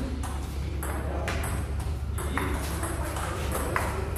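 Table-tennis rally: the ball clicking sharply off the bats, one with long-pimple rubber and one held penholder-style, and bouncing on the table, about five hits spaced half a second to a second and a half apart. A steady low hum lies under it.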